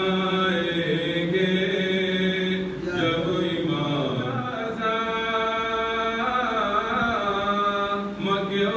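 A man chanting a munajat qasida, a devotional supplication poem, unaccompanied in long drawn-out phrases. He breaks for breath just under three seconds in, then starts a higher phrase with a long held note that wavers in the middle, and breaks again near the end.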